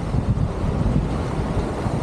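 Wind buffeting the camera's microphone: a low, uneven rumble of noise.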